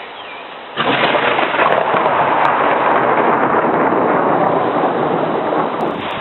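Heavy thunderstorm rain pouring down steadily, cutting in abruptly under a second in.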